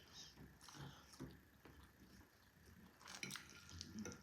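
Faint chewing and mouth sounds of someone eating, with soft scattered clicks, a little louder about three seconds in and again near the end.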